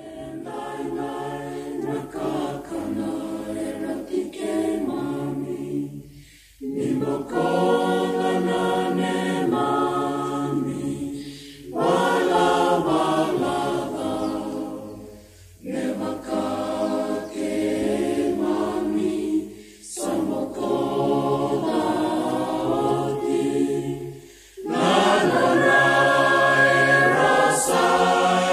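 A choir singing in phrases of about four to five seconds, each followed by a short breath pause; the last phrase, near the end, is the loudest.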